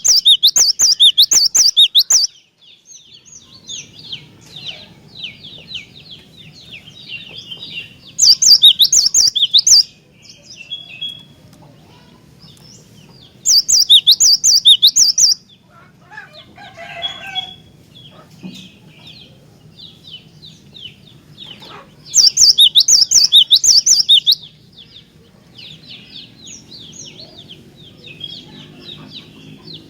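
Cinereous tit (gelatik batu) singing: four loud bursts of rapid repeated high notes, each about two seconds long, with softer twittering in between.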